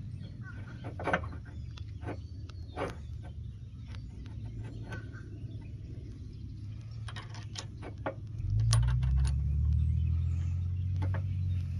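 Light metallic clicks and clinks of a steel Category 2 quick-hitch adapter bushing being handled on a hitch pin and a roll pin being fitted into its hole. Beneath them runs a low rumble that grows louder about two thirds of the way through.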